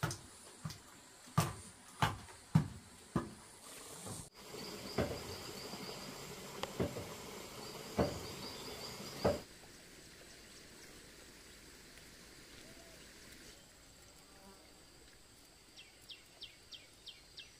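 A series of sharp knocks about two a second, then insects chirping in quick high pulses over a hiss with a few scattered knocks. Near the end comes a quick run of faint clicks.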